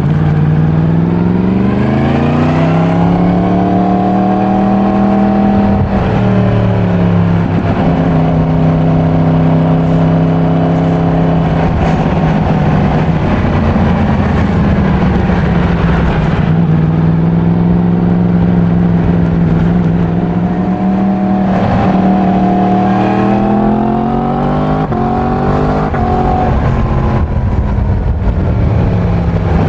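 Yamaha MT-10's crossplane inline-four on its stock exhaust, ridden while still being run in. The engine note climbs under acceleration for the first few seconds, holds steady while cruising, climbs again about two-thirds of the way through and eases off near the end.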